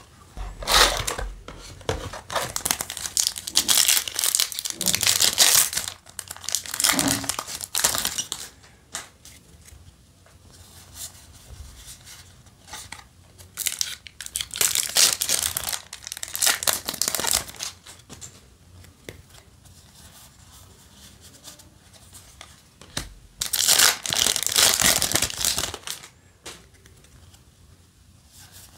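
Foil Yu-Gi-Oh! Synchro Storm booster pack wrappers crinkling and being torn open, in three bursts of crackling: a long one at the start, a shorter one about midway and another near the end.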